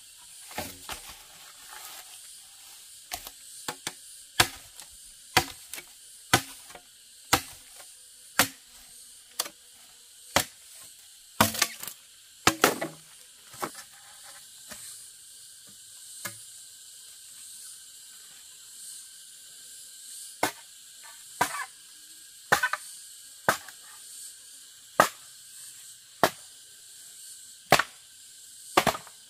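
Machete chopping bamboo: sharp, separate strikes about once a second, with a lull in the middle. A steady high insect drone continues behind the strikes.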